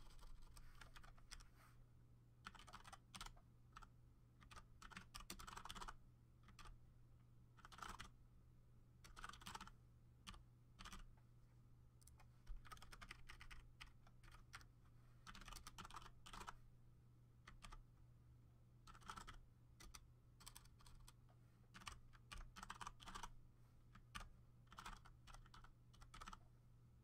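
Faint typing on a computer keyboard: keystrokes come in short runs with pauses between them, over a steady low hum.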